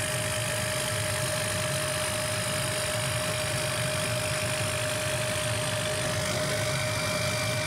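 Laser cutter running while it cuts cardboard: a steady mechanical hum with one constant whining tone, and a fainter higher tone joining about six seconds in.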